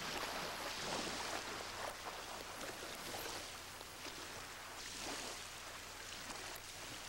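Water splashing and sloshing as a man in chest waders wades out through shallow lake water, coming in uneven surges.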